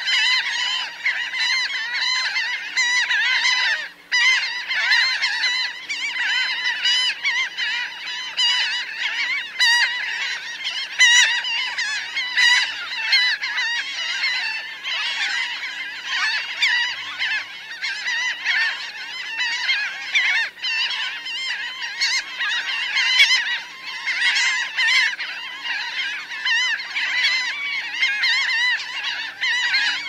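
Large flock of laughing gulls calling close by: a dense, continuous chorus of many overlapping calls, with a momentary lull about four seconds in.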